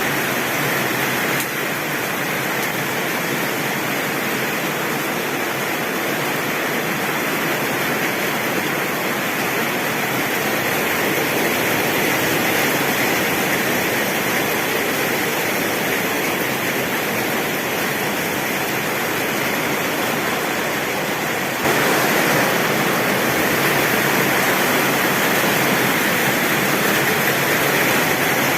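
Heavy rain falling steadily, a dense even hiss with no thunder, stepping up slightly louder about 22 seconds in.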